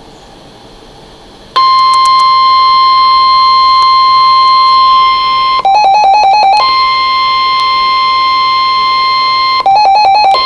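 Weather radio alert tone: a loud, steady high alarm tone starts about one and a half seconds in. It is broken twice by about a second of rapid warbling beeps.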